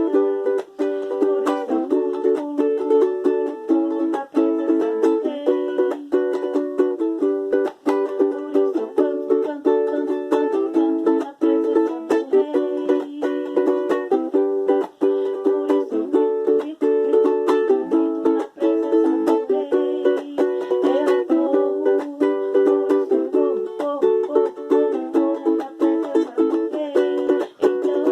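Ukulele strummed in a fast, steady rhythm, playing changing chords of a praise song, with no singing.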